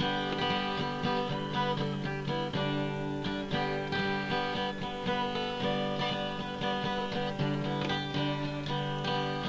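Background music: a plucked-string instrumental in dulcimer style, picked notes over a low steady drone.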